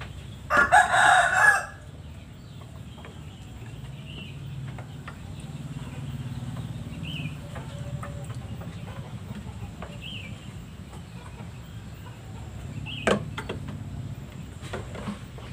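A rooster crows once, loudly, about half a second in, a call of about a second. The rest is a steady low background with faint short high chirps and a single sharp click near the end.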